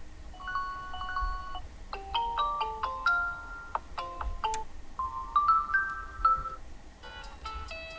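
Huawei Y90 default ringtone playing, a melody of separate short pitched notes; a different ringtone begins near the end.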